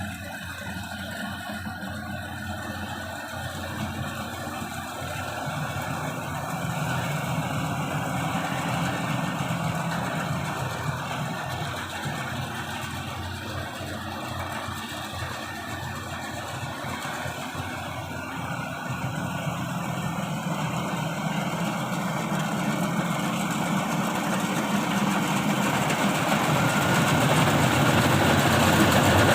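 Yanmar YH850 combine harvester's diesel engine running steadily, growing louder toward the end as the machine comes closer.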